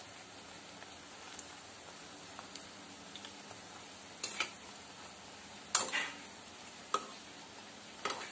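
Urad dal vadas frying in a steel kadai of hot oil, a steady sizzle, as they are turned with a metal spatula. The spatula knocks and scrapes against the pan a few times from about halfway through, loudest around three quarters of the way in, with a last knock near the end.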